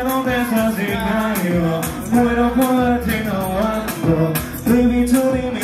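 A male vocalist singing a melodic line over an urban backing track with a steady beat and bass.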